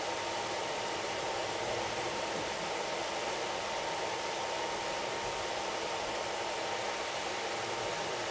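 Steady rushing noise of a passenger train running along, with a faint steady whine.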